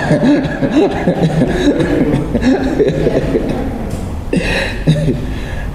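Chuckling and laughter, including a man laughing into a handheld microphone, with a brief cough-like burst about four and a half seconds in.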